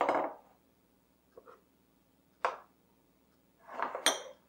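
Glass bowls and a glass of shaved almonds set down one after another on a kitchen countertop: a few short knocks and clinks, the last a brighter glassy clink.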